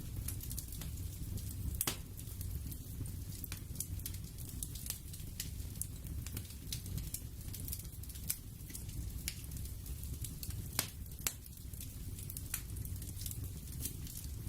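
Crackling fire: irregular sharp pops and crackles scattered over a low steady rumble.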